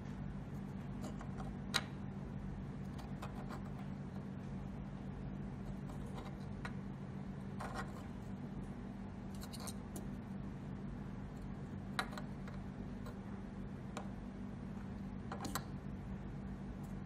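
Plastic Cat 6 RJ45 keystone jack handled by fingers on a wooden desktop: scattered light clicks and short scrapes, the sharpest about two seconds in and again about twelve seconds in, over a steady low hum.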